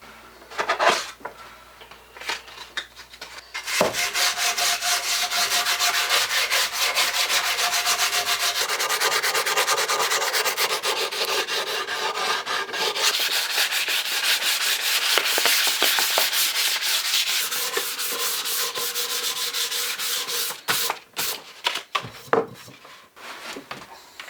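Sanding by hand: rapid, steady back-and-forth rubbing strokes that start about four seconds in and stop near the end, with a few knocks and clicks before and after.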